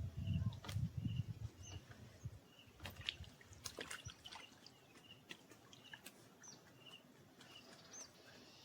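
Small birds calling, with repeated short chirps and a few higher curving calls. A low wind rumble on the microphone in the first two seconds, and a few sharp clicks about three to four seconds in.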